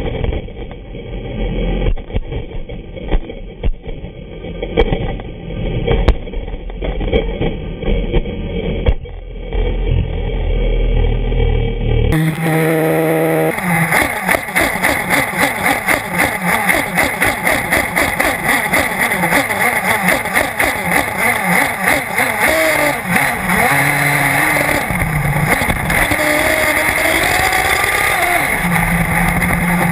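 Small nitro engine of a 1/8-scale RC buggy, heard from a camera mounted on the car, revving up and down over a steady rush of wind and tyre-on-dirt noise. The first stretch is duller, with uneven knocks and clatter. About twelve seconds in, the sound turns fuller and the engine's rising and falling whine becomes clear.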